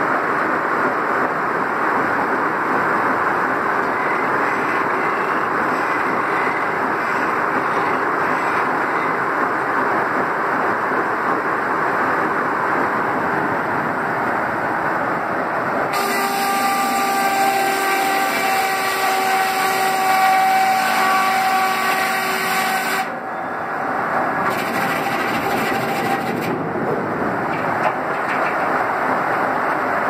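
Steam-powered circular sawmill running: a steady mechanical din from the saw rig and log carriage. About halfway through, a loud hiss with several steady ringing tones joins in for some seven seconds, then drops away.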